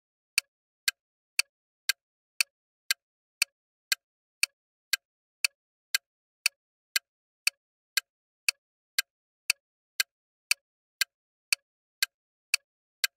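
Clock-tick sound effect for a quiz countdown timer: short, sharp ticks, evenly spaced at about two a second.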